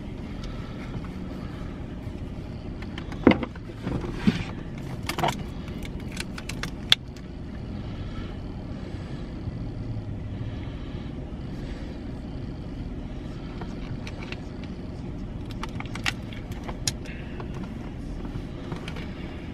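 Steady engine and road rumble inside a moving truck's cabin. Several sharp clicks and crackles come about three to seven seconds in and twice more near the end, from a plastic water bottle being handled.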